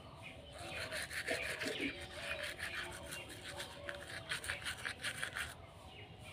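Manual toothbrush scrubbing teeth in rapid back-and-forth strokes, stopping about five and a half seconds in.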